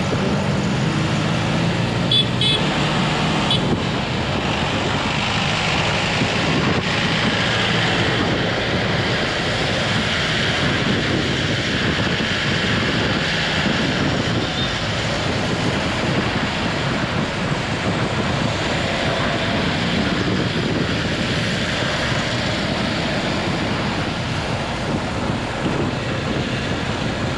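Steady road noise of a motorcycle ride in city traffic: the bike's engine running and passing vehicles, with little change in level.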